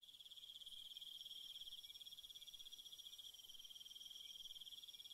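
An insect's faint, steady high-pitched trill made of very rapid pulses, with a fainter, higher note above it.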